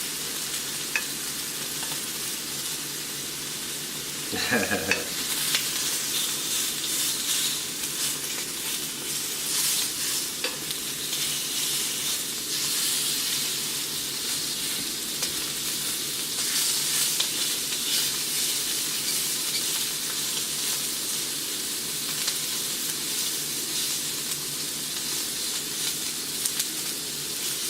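Sausage frying in a pan, a steady sizzling hiss.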